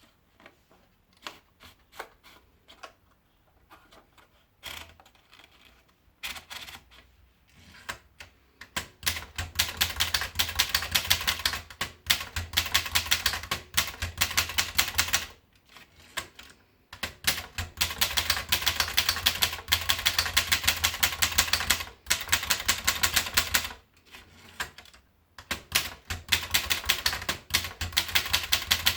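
Groma Gromina manual portable typewriter being typed on. A few scattered keystrokes come first, then fast, continuous key strikes from about nine seconds in, broken by two short pauses.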